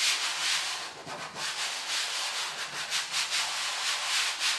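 Hands rubbing and scraping over Rexine vinyl cloth and a panel as it is fitted and smoothed down, a dry rasping rustle that swells and fades in irregular strokes.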